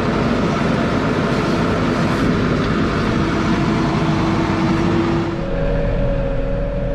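Case IH Farmall 110C tractor's diesel engine running as the front loader spears a round hay bale and lifts it. About five seconds in the sound eases into a steadier hum with a single held tone.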